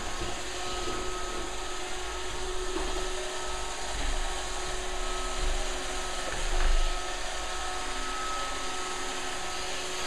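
iRobot Roomba robot vacuum running: a steady whir and hiss from its motor and brushes with a thin high whine, swelling briefly a few times midway through.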